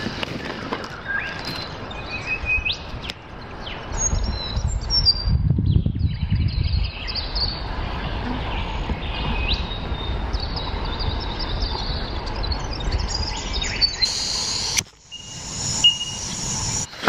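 Small birds chirping and calling again and again over a steady outdoor hiss. A low rumble comes through from about four to seven seconds in.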